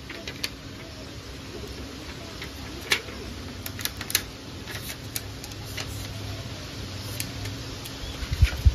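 Clear plastic protective film crinkling and crackling as it is peeled off a new smartphone and handled, with scattered sharp clicks. A few dull thumps near the end are the loudest sounds.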